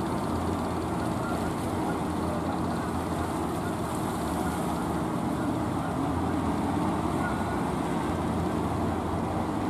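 Inboard engines of wooden outrigger-style fishing boats running steadily as the boats motor in, over a steady hiss of water and wind.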